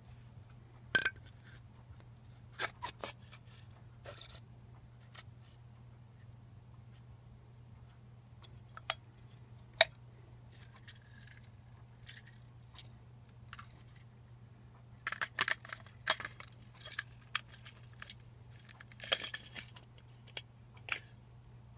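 Handling noises from taking apart a lightsaber replica hilt: scattered sharp clicks, taps and short scrapes of small parts and tools. There is one very sharp click about halfway through and a busier run of clicks and scrapes near the end, over a steady low hum.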